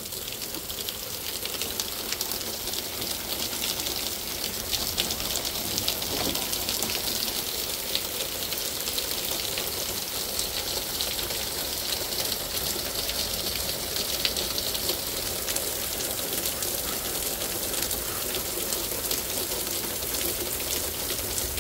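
Heavy thunderstorm rain pouring steadily, a dense patter of drops striking hard surfaces and pooled water.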